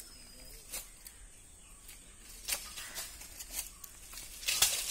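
Dry leaf litter and undergrowth rustling as a stick is pushed through it, with a few sharp clicks; the rustling grows louder near the end.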